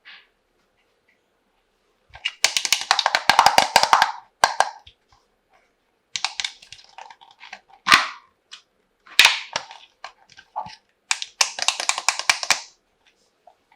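Small plastic toy kitchenware being handled: rattling, clattering and clicking against each other. There are two longer bursts of rattling and several single sharp knocks between them.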